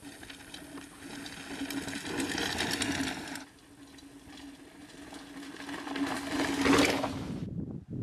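Mountain bike coasting past, its rear hub ratchet buzzing and its tyres rushing over grass and dirt. It grows louder as it closes in, about three seconds in and again near the end, and each time cuts off suddenly.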